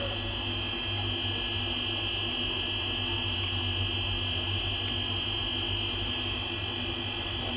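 A steady mechanical hum with a constant high-pitched whine above it, unchanging throughout, with no distinct calls or splashes.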